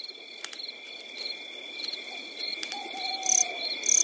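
Night insect chorus of crickets chirping: short chirps repeat about three times a second over a continuous high trill. A brief falling call comes about three seconds in, and two sharper high chirps come near the end.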